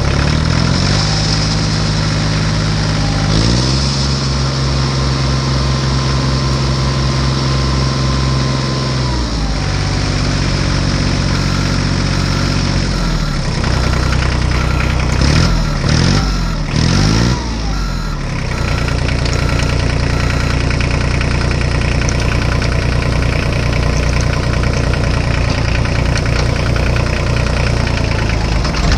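A vehicle engine idling and revving, its pitch stepping up and down every few seconds and swooping rapidly up and down a little past halfway. A steady beeping, about twice a second, runs through the middle stretch.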